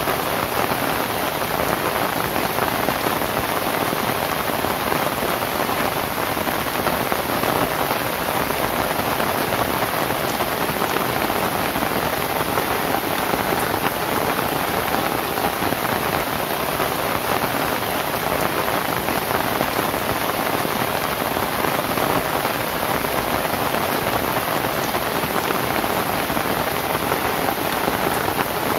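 Steady, dense rain falling on a thatched roof of lontar (palmyra palm) leaves, an even patter of countless drops with no lulls.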